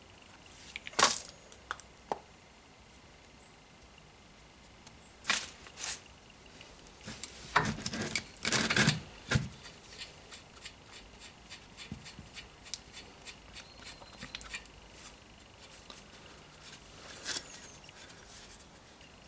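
Scattered clicks and light metallic knocks from hands handling brake parts: a copper grease tube, a caliper bolt and the brake caliper. A cluster of louder knocks comes near the middle, then a run of small, fairly even ticks.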